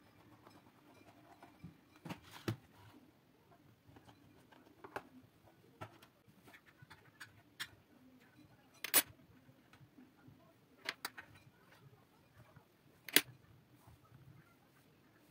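Scattered sharp clicks and taps of a knife, then a fork, knocking against a metal baking tray while a soft sponge cake is cut and lifted. The two loudest taps come about nine and thirteen seconds in.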